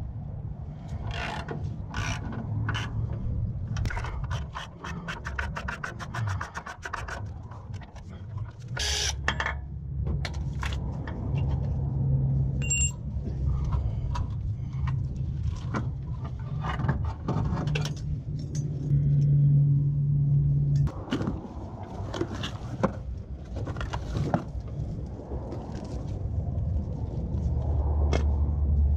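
Ratchet wrench clicking in a quick even run a few seconds in as a starter bolt is turned out, then a loud metal clank near nine seconds. Metal tools and parts clink and scrape throughout, over a steady low rumble.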